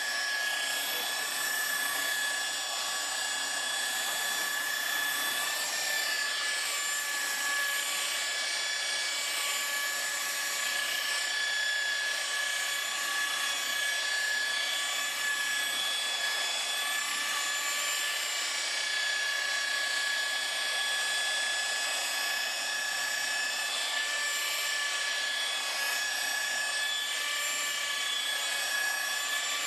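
Electric rotary buffer running at low speed while polishing a car's finish, a steady motor whine that holds an even pitch.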